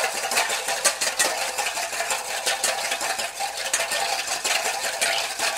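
Wire whisk beating back and forth in a stainless steel mixing bowl: a steady, rapid run of metallic clicks and scrapes. The whisk is mixing the vinegar, mustard and mayonnaise base of a vinaigrette before the oil goes in.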